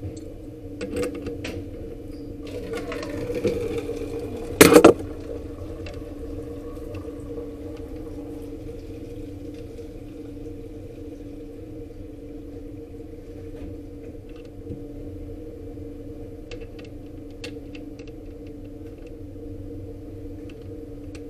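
Small clicks and handling noises from fitting a cabinet door lock, with one loud sharp knock just under five seconds in, over a steady low hum.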